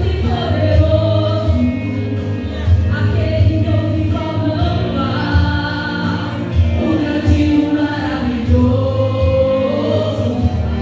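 A choir sings a gospel hymn over instrumental accompaniment with a heavy bass line.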